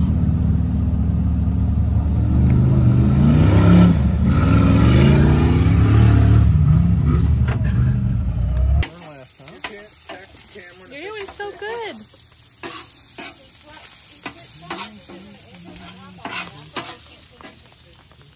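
For about the first nine seconds, an off-road vehicle's engine revving, its pitch rising and falling. It cuts off suddenly, and the rest is sliced onions sizzling quietly on a flat-top griddle, with a metal spatula scraping and tapping on the cooking surface.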